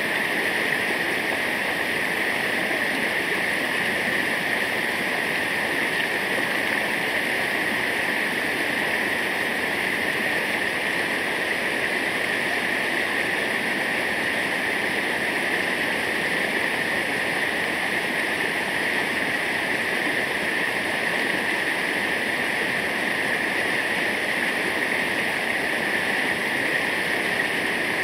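Waterfall: water falling and rushing steadily, an even hiss with no change in level.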